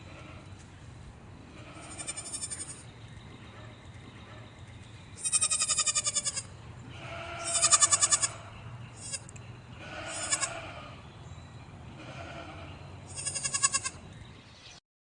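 Goats bleating, about seven quavering calls of differing lengths, the loudest about five and eight seconds in.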